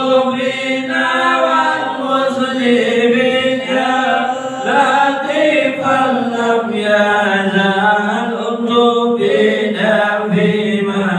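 Voices chanting a slow, melodic Arabic devotional chant (dhikr or sholawat) in unison, with long held notes that bend in pitch.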